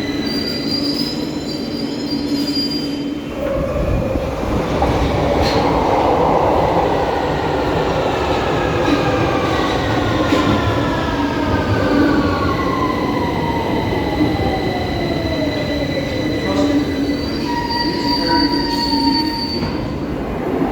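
London Underground 2009 Stock train slowing into a station: its traction motors' whine falls steadily in pitch over about ten seconds, over the rumble and squeal of wheels on rail.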